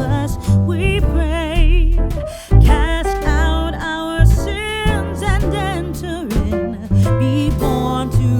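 Background music: a Christmas carol arrangement with a wavering melody over guitar and bass.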